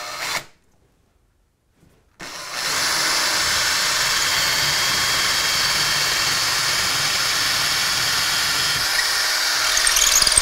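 Power drill with a 10 mm bit boring into a Thermalite aerated-concrete block wall, starting about two seconds in and running steadily. Near the end the sound changes slightly as the bit goes through into the wall cavity.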